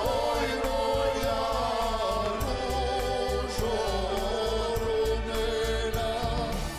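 Traditional Croatian song: a sung melody over instrumental backing with a steady beat in the bass.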